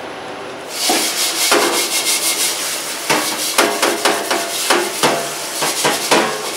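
A large metal stockpot being scrubbed by hand in a sink, rapid rough scraping strokes against the metal, starting under a second in.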